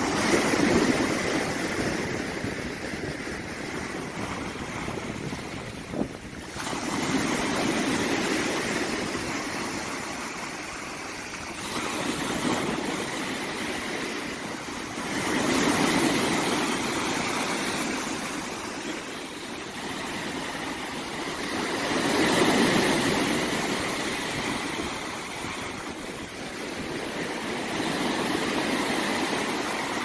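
Small sea waves breaking and washing up a sandy beach, the surf swelling and fading about every six to seven seconds. There is a short click about six seconds in.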